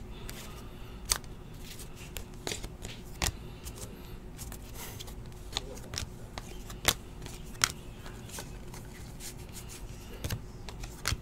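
Cardboard basketball trading cards being flipped and slid through the hands one at a time, giving irregular sharp clicks and snaps over a steady faint hum.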